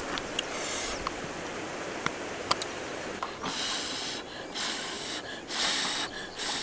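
Chopsticks clicking sharply against a plate a few times. Then, from about halfway through, a run of repeated noisy slurps and sniffs from eating a steamed fish.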